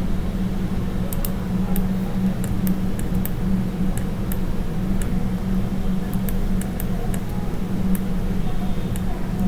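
Steady low electrical hum on the recording, with scattered faint computer mouse and keyboard clicks at irregular intervals.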